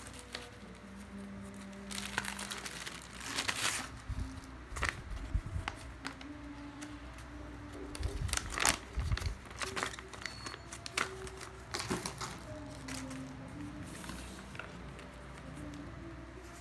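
Clear plastic bag crinkling and a paper instruction manual rustling as they are handled, in uneven bursts, loudest a couple of seconds in and again about halfway through.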